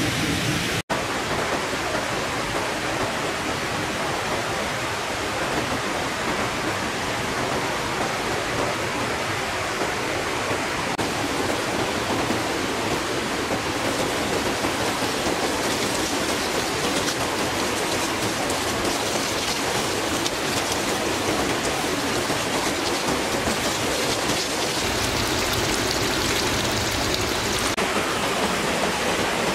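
Steady rushing of flowing water, a forest stream or small waterfall, with a brief cut-out about a second in.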